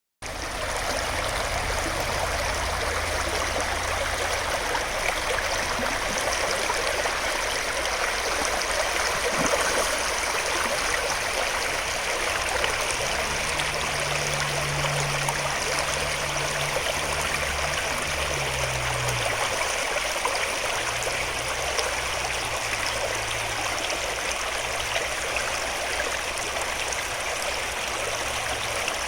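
Swift stream water rushing steadily over its bed in a continuous even wash. A low hum sits underneath, strongest about halfway through.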